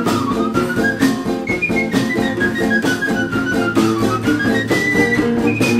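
Instrumental traditional dance tune. A guitar strums a steady chord rhythm under a high melody line that steps downward in runs, climbs back, and ends on a few held high notes.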